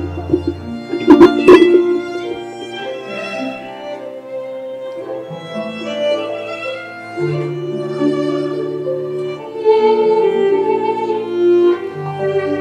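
Slow instrumental music led by a violin, with a bowed string and plucked accompaniment, moving through held melody notes. A few sharp clicks are heard about a second in.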